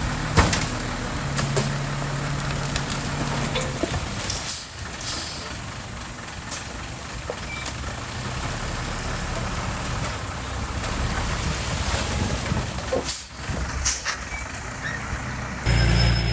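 Heavy construction machinery's diesel engine running steadily, with several sharp knocks and short hisses spread through. Near the end the sound switches abruptly to a louder, steadier engine hum.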